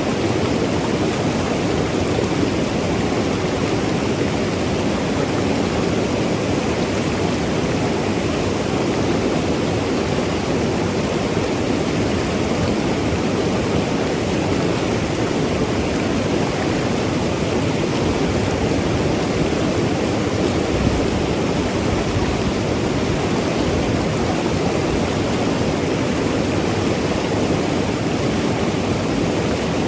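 Mountain river flowing and tumbling over rocks: a steady, even rush of water with no changes.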